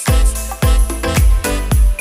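Background music with a steady dance beat and heavy bass.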